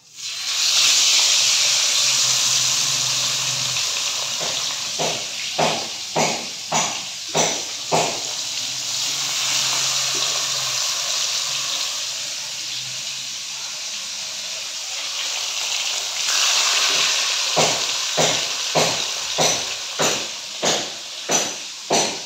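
Whole marinated tilapia slid into hot oil in a kadai, the oil sizzling loudly at once and slowly settling, then surging again about two-thirds of the way through as more fish is fried. Two runs of evenly spaced knocks, a little under two a second, sound over the frying.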